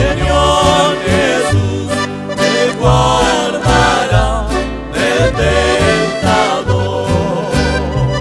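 Men's vocal trio singing a Spanish-language Christian song in harmony over an instrumental backing with a walking bass line and steady beat.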